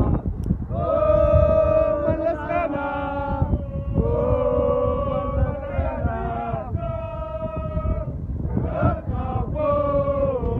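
A group of male football supporters chanting a terrace song in unison, in long held phrases.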